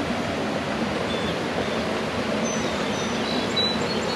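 Steady rush of river water pouring around a rock and over a small waterfall, with a few faint high bird chirps near the end.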